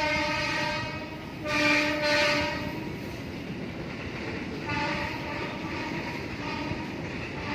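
Train horn sounding in long blasts of one steady pitch: one running on from before and ending about a second in, another from about a second and a half to nearly three seconds, a weaker one around five to six and a half seconds, and another starting at the very end, over a steady rumbling noise.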